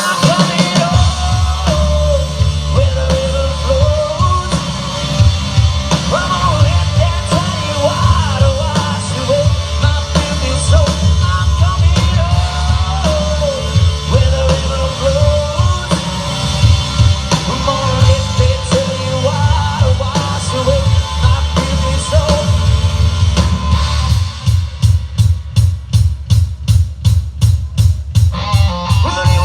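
A rock band playing live: drum kit and bass under a lead melody with bending notes, with no lyrics sung. Near the end the lead drops out for a few seconds, leaving drums and bass pounding a fast steady beat, then comes back.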